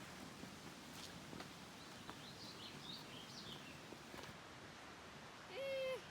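Faint outdoor ambience with a few short, high bird chirps in the middle. Near the end comes a brief steady tone with overtones, the loudest sound.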